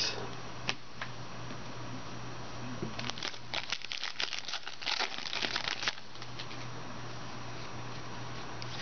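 Foil trading-card pack wrapper crinkling as it is torn open and handled: a couple of single crackles, then a dense flurry of crinkling from about three to six seconds in.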